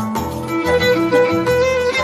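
Instrumental music: a violin melody over a repeating bass line.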